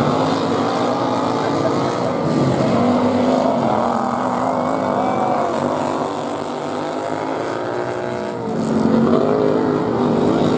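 Several racing lawn mower supermodifieds' small engines running together on a dirt oval, their pitch rising and falling as they rev and ease off through the turns.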